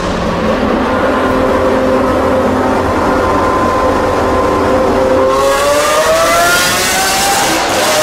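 Novitec-tuned Lamborghini Aventador's V12 engine under way, holding a steady note for about five seconds, then rising in pitch as it accelerates, with a growing hiss over it.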